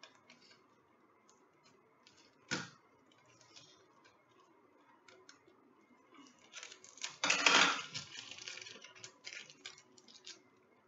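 Scissors cutting plastic packaging ties off a toy: scattered small clicks and snips, a sharper snip about two and a half seconds in, and a louder spell of plastic crackling and rustling around seven to eight seconds in.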